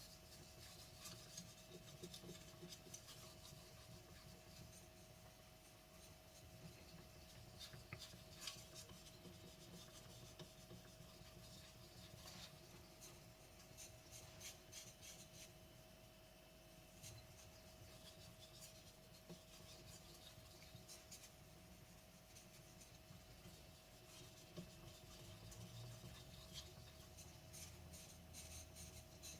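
Faint rasping scrape of a carbon steel (blue steel) gyuto blade being stroked back and forth on a wet Naniwa whetstone, in irregular strokes.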